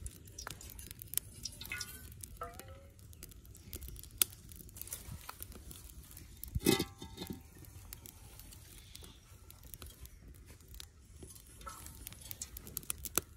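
Small wood fire crackling under an aluminium cooking pot: scattered sharp clicks and pops over a low rumble, with one louder knock and a short ring about seven seconds in.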